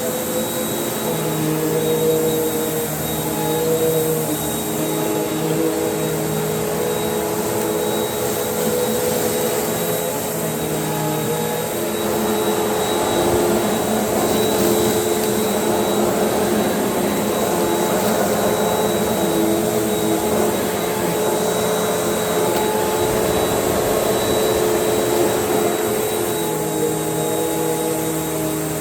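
Panasonic cord-reel upright vacuum cleaner running continuously while vacuuming paper shreds. It is a steady motor hum with a thin high whine, and its pitch steps up and down a little now and then.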